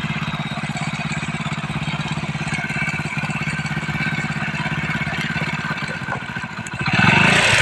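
A vehicle engine running steadily, with a fast, even firing pulse, getting louder near the end.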